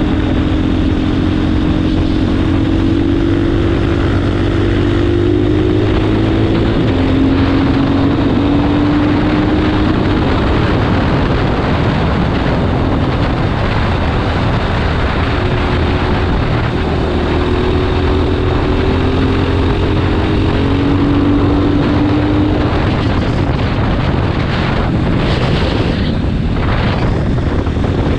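KTM 500 four-stroke single-cylinder dirt bike engine pulling at road speed, its note rising gently and easing off twice, with heavy wind rush on the bike-mounted microphone.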